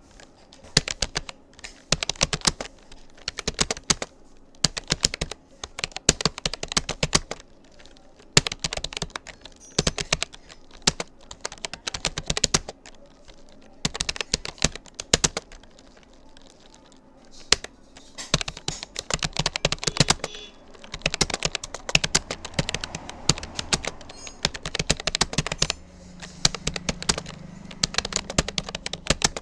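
Fast touch typing on a Rapoo computer keyboard: a steady, irregular run of key clicks, thinning to a few scattered strokes about halfway through before picking up again.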